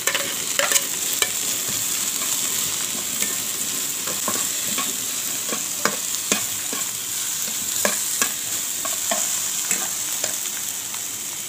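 Sliced okra and garlic sizzling in hot oil in a frying pan, stirred with a slotted metal spatula that scrapes and clicks against the pan many times.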